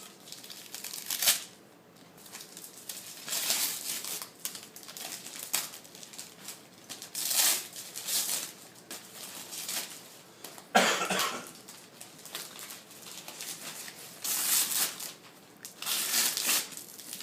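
Gift-wrapping paper being torn and crumpled as a present is unwrapped, in a series of short rustling bursts, with a brief sharp sound about eleven seconds in.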